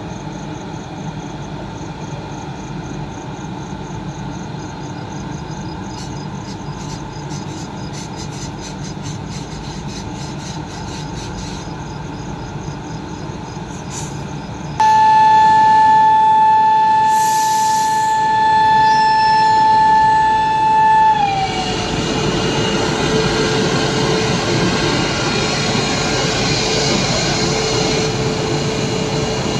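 Sarnath Express train on the move: a steady rumble of the running train, then about halfway a locomotive horn sounds one long steady note for about six seconds, sliding down in pitch as it cuts off. After the horn the train's running noise is louder and rougher.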